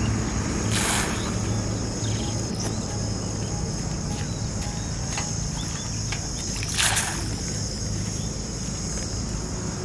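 Ground bait of bran and flour mixed with water, flung from a metal basin and splashing into a pond twice, about six seconds apart, over a steady low hum and a steady high drone.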